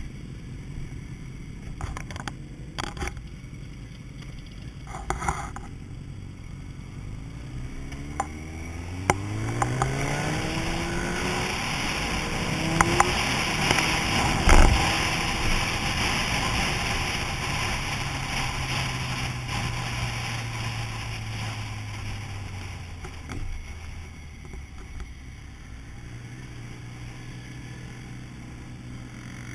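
Motorcycle engine heard from the rider's helmet: running slowly at first, then pulling away and accelerating through the gears with the pitch climbing and resetting at each shift, and then cruising steadily. Wind rushes over the microphone once up to speed, with a thump about halfway.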